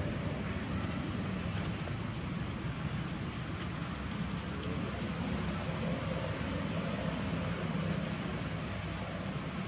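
A steady, high-pitched chorus of insects that holds constant throughout, with a low rumble underneath.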